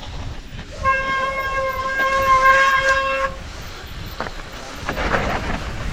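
A steady horn-like tone sounds for about two and a half seconds, starting about a second in, over a constant low rumble.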